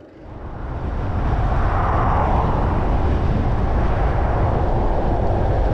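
Wind rushing over the microphone as the bicycle picks up speed downhill. It builds over the first second or so, then holds as a steady low rumble and hiss.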